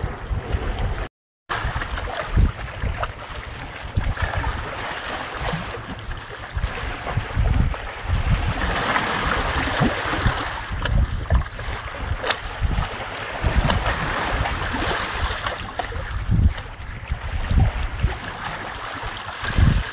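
Shallow stream running over stones while a puppy wades through it, its paws splashing now and then, with wind gusting on the microphone. The sound cuts out for a moment about a second in.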